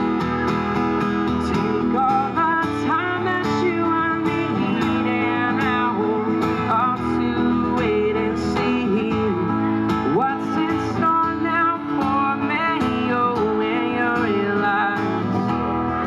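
Background music led by strummed acoustic guitar, playing steadily throughout.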